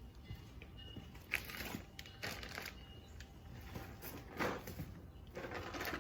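Handling noise from objects being picked up and moved around: irregular rustles and scrapes, with a sharper knock about a second and a half in.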